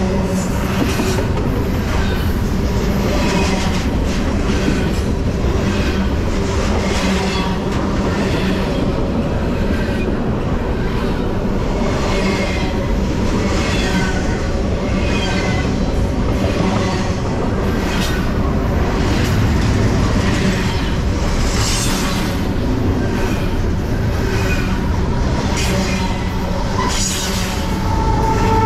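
Freight train passing a few metres away: a steady, loud rumble of steel wheels on the rails, broken by a run of repeated clacks as the cars roll by.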